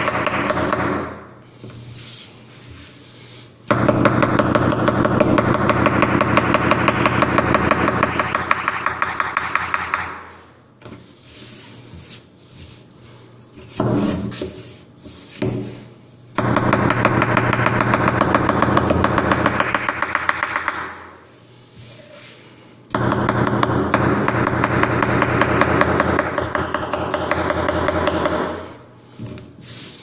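Victorinox Chinese vegetable cleaver rapidly chopping cucumber on a wooden cutting board: fast, even knocks of the blade on the board in runs of several seconds each, broken by short pauses.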